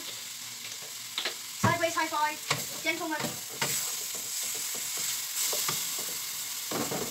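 Food sizzling as it fries in oil in a frying pan, with a utensil stirring it and scraping the pan; the sizzle grows steadier over the second half.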